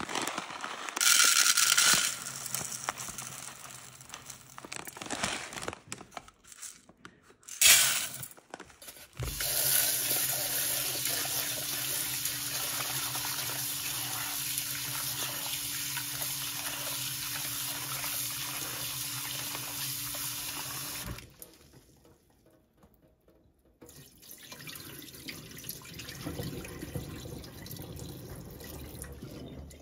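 Dry freekeh grains poured from a bag into a rice cooker's metal inner pot. Then a tap runs steadily into the pot in a stainless steel sink while the grain is rinsed by hand, from about ten seconds in until about twenty-one seconds. Near the end the rinse water is poured off into the sink.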